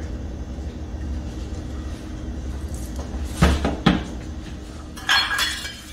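Two sharp knocks about half a second apart in a kitchen, then a brief rush of noise near the end, over a steady low hum.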